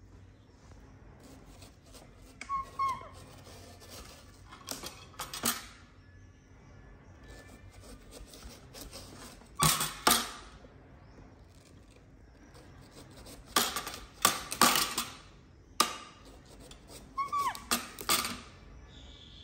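A small knife cutting the rind off a half watermelon: short, crisp crunches and clicks at irregular intervals, in clusters about two and a half, five, ten, fourteen and eighteen seconds in.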